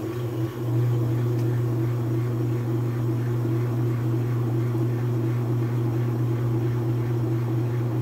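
Whirlpool (Kenmore) top-load washing machine in its spin cycle: motor and transmission running with a steady hum as the whole tub spins. The clutch has just been tightened with extra washers, and the basket now spins instead of only the agitator turning.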